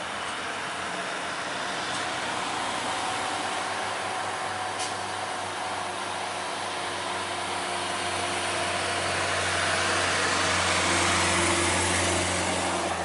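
Diesel truck engines running at low revs, a steady low hum that grows louder over the last few seconds and then falls away at the very end.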